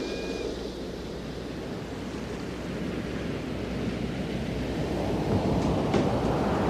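Recorded ocean surf opening a song: a steady wash of waves that slowly swells louder, with a couple of sharp clicks near the end as the band is about to come in.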